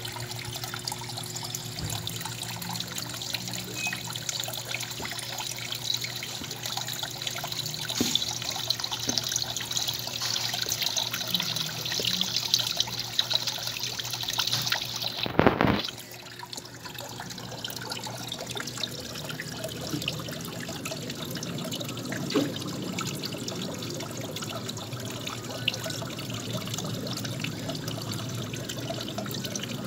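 Steady trickle and lap of water in a turtle pond. About halfway through there is one brief loud bump, after which the water sound is lower and duller.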